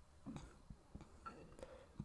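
Near silence: faint room tone with a few soft clicks spread through it.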